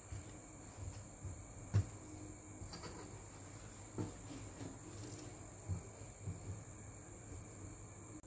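Hands laying and smoothing fabric on a tabletop: a few soft, faint knocks and rustles, the clearest about two seconds in. A steady high-pitched whine runs underneath.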